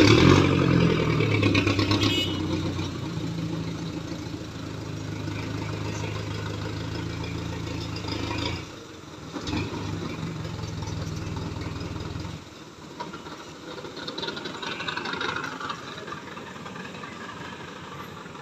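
Light flatbed truck's engine running as the truck drives slowly past, loudest in the first couple of seconds. It breaks briefly about nine seconds in, then runs on steadily and drops away about twelve seconds in.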